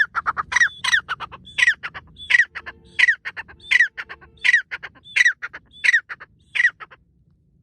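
Francolin (teetar) calling: a loud series of ringing notes, each sweeping down in pitch, about one every 0.7 s, with quick lower chattering notes packed between them. The calling stops about seven seconds in.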